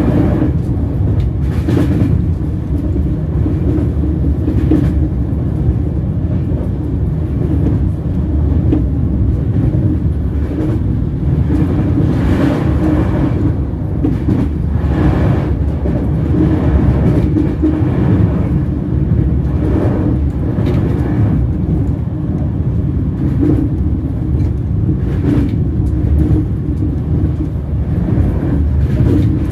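Train wheels rolling on the rails: a steady, loud low rumble, with short clicks every second or few from the wheels passing over rail joints and track gaps.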